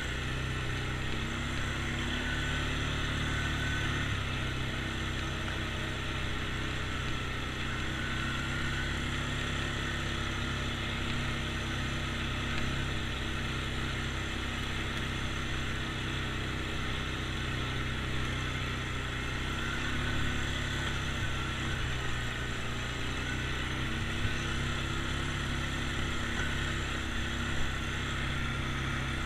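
ATV engine running steadily while being ridden along a dirt trail, its pitch shifting a little now and then as the throttle changes. Two brief knocks come near the end.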